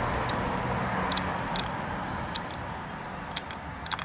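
Combination dials on a Master Lock key lockbox being turned by hand: a handful of light, scattered clicks, over a steady background rumble that slowly fades.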